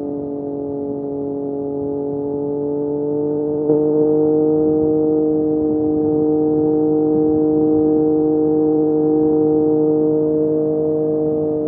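Triumph Street Triple RS 765 cc inline three-cylinder engine through an SC Project S1 slip-on exhaust, running steadily under way. Its note rises a little over the first few seconds, with a short click and a step up in loudness about three and a half seconds in, then holds a steady pitch.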